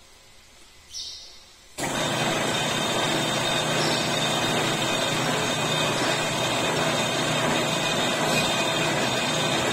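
Metal lathe switched on about two seconds in, its motor and drive then running steadily with a constant hum, after a brief noise about a second in.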